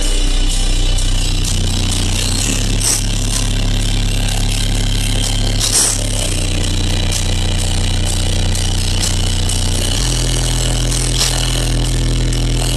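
A car audio system's subwoofers playing bass-heavy music at very high volume, heard inside the vehicle. Long deep bass notes hold steady and step to a new pitch every few seconds, with a buzzing, distorted edge.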